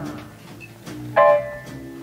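Jazz big band playing a swing number: a bass line underneath and a loud chord that hits a little over a second in and fades.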